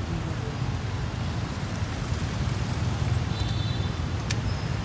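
Street traffic: the steady low rumble of cars and motorcycles moving slowly past, with a sharp click a little after four seconds in.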